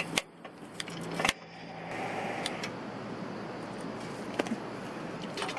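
Camping gear being handled: a few sharp clicks and knocks, the strongest just after the start and about a second later, over steady background noise.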